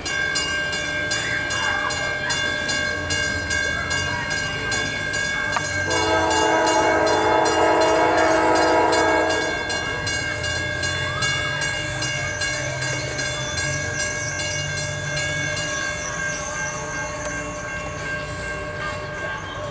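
Horn of a GE CW40-8 freight locomotive sounding one long chord blast about six seconds in, held for about three and a half seconds. Under it runs the low rumble of the diesel locomotives, along with a steady high ringing tone and rapid even ticking.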